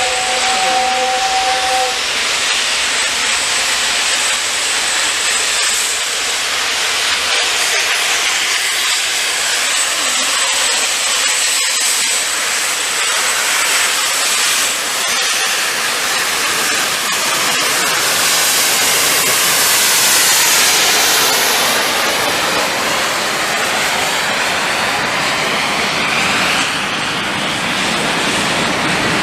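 Steam-hauled train passing: a steady loud rush of steam hiss and rolling wheels. A brief two-note whistle sounds in the first two seconds.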